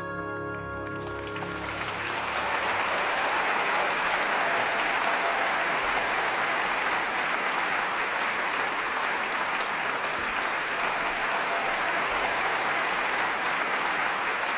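The final chord of the orchestra and band dies away, and about two seconds in an audience breaks into applause that swells and then holds steady.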